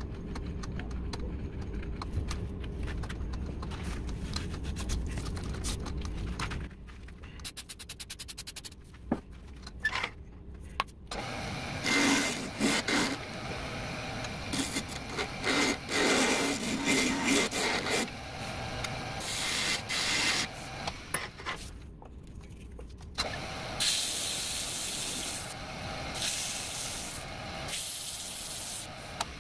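Wood lathe spinning a small turned box lid in a chuck while it is cut and sanded to refit it: stretches of hissing, scraping tool and abrasive on the wood that start and stop, over a low motor hum. A quick run of clicks comes about eight seconds in.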